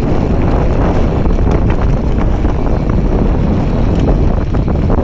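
Wind buffeting the microphone on a fast mountain-bike descent, over a steady rumble of the bike's Kenda Saber Pro tyres rolling on a dirt trail, with many short clicks and knocks as the bike runs over roots and bumps.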